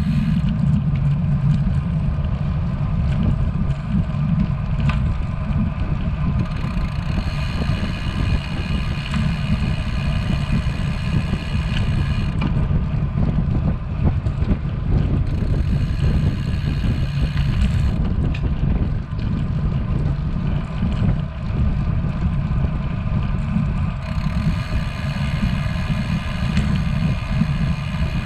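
Wind rumbling over the microphone of a bicycle-mounted camera while riding along a paved path. A steady whirring buzz comes and goes over it in stretches of a few seconds.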